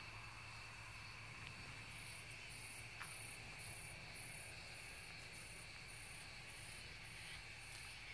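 Faint crickets: one steady, continuous high trill, joined about two seconds in by a higher chirp pulsing about twice a second.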